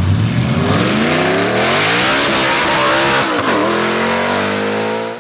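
Audi B8 A4 2.0T TFSI turbocharged four-cylinder with a JHM 3-inch performance exhaust, accelerating hard. The pitch climbs, dips briefly at a gear change about three and a half seconds in, climbs again, then cuts off suddenly.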